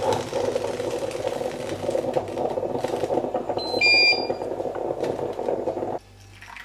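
Bialetti stovetop moka pot gurgling and sputtering as the brewed coffee erupts into the upper chamber, a steady rough crackle, with a brief high whistle about four seconds in. Near the end it gives way suddenly to faint sound.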